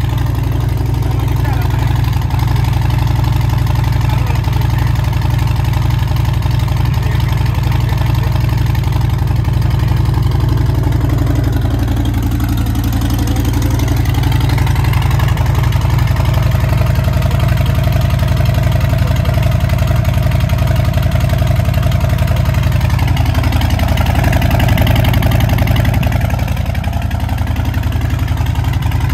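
Harley-Davidson Fat Boy 114's Milwaukee-Eight 114 V-twin idling steadily through an aftermarket Big Radius two-into-two exhaust.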